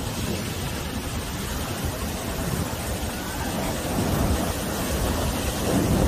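Ocean surf breaking and washing up a sandy beach: a steady rush of foaming water that swells louder in the second half as a wave comes in, with wind rumbling on the microphone.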